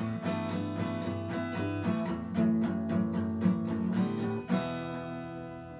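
Acoustic guitar strummed in a steady rhythm, then a last chord struck about four and a half seconds in and left to ring and fade.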